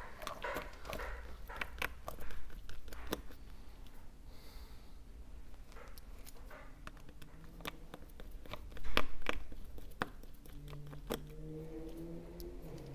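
Small clicks, taps and scrapes of repair tools against an iPhone 12's internal parts, irregular throughout, with one louder clatter of handling about nine seconds in.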